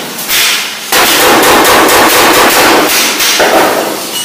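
Oxy-acetylene cutting torch hissing loudly with rapid, irregular crackling as it cuts holes in a steel body panel.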